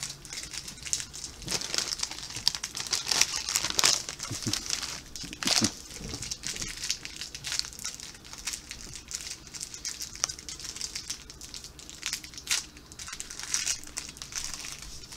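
Crinkly plastic biscuit wrapper being crumpled and torn open by hand, in irregular crackles that are loudest about three to four seconds in.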